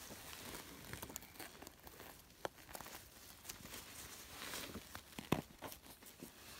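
Rustling of feathers and skin tearing as gloved hands work at a wild turkey's wing, with scattered small clicks and one sharper click about five seconds in.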